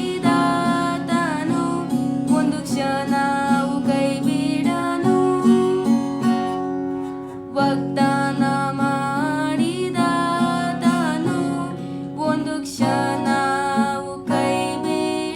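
Acoustic guitar strumming chords under a solo voice singing a Kannada gospel song, with a short pause between sung phrases about halfway through.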